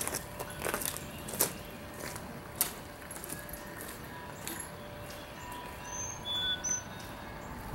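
Footsteps and trekking-pole taps on gravel, a few sharp clicks that thin out as the walker moves away. A few short high bird chirps come near the end.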